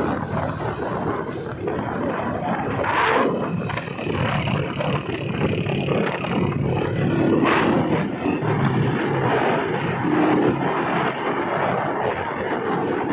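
Vehicle travelling along a road: steady engine drone mixed with wind rushing over the microphone, with two brief higher-pitched noises about three and seven and a half seconds in.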